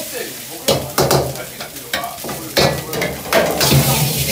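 Fried rice stir-frying in a wok over a gas flame: a metal ladle repeatedly scraping and knocking against the wok over the sizzle of the rice.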